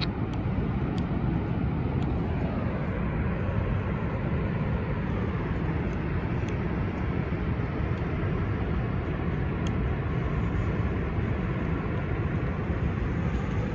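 Shortwave radio's speaker giving steady static with no station heard, with a few faint crackles.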